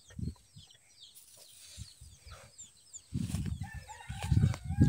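Chickens clucking, with short high chirps over the first few seconds and a longer call near the end. From about three seconds in there is loud low rumbling handling noise on the microphone.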